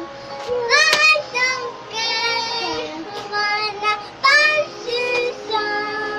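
Young girl singing in a child's voice, in short phrases with brief breaks between them.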